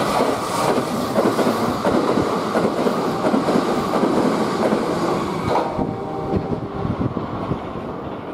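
Kintetsu limited express electric train passing through a station at speed: rumble and wheels clattering over rail joints, loud at first, then thinning out and fading after about six seconds as the last car goes by.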